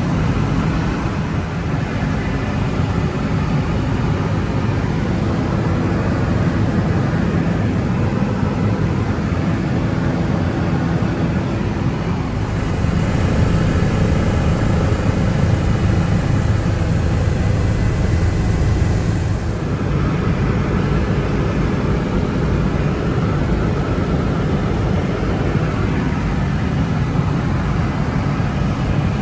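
Helicopter in flight, heard from inside the cabin: a steady, loud drone of rotor and engine, heaviest in the low range.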